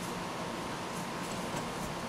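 A few faint ticks and clicks from a Branick strut spring compressor as its handles are turned to compress a car's front coil spring, over a steady background hiss.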